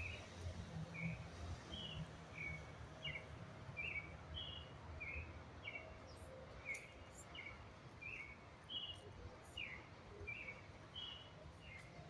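A bird repeating short chirping notes, a little under two a second, with the notes alternating between a lower and a higher pitch. Under it there is a faint low background rumble.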